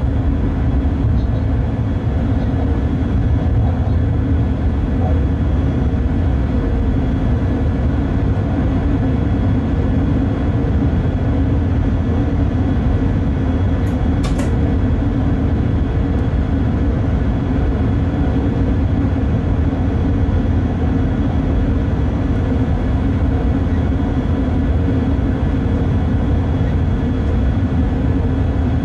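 Cab noise of a Bombardier Traxx BR186 electric locomotive hauling a freight train: a steady low rumble of running along the track, with faint steady tones above it. A brief sharp click about halfway through.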